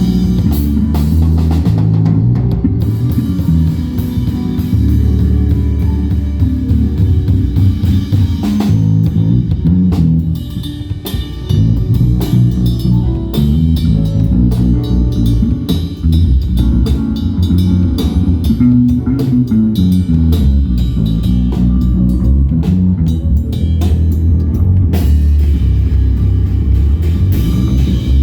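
Instrumental music with drum kit, bass guitar and guitar, without singing, played loud with a heavy bass line.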